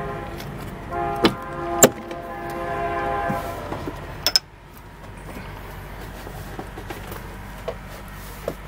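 Kenworth T700 cab door being opened and entered: two sharp latch clicks about a second in, and a double click with a thud near four and a half seconds, after which the sound goes duller. A steady pitched tone sounds three times over the first three and a half seconds, over a low steady hum.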